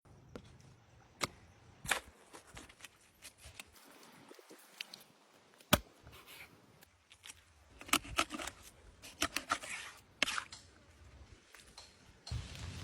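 Scattered sharp clicks, taps and knocks of hands-on food preparation, irregular and bunched together about two-thirds of the way through. A steady hissing noise sets in just before the end.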